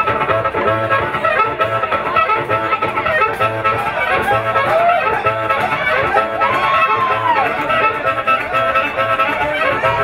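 Live electric blues band playing a shuffle with a steady beat, drums and electric guitars under a blues harmonica played into a vocal microphone, its notes bending up and down, with one long bent note about two-thirds of the way through.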